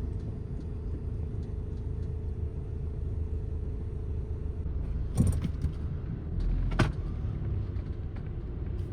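Car driving slowly over a rough, rocky gravel road, heard from inside the cabin: a steady low rumble of engine and tyres, with two sharp knocks about five and seven seconds in as the car jolts over rocks.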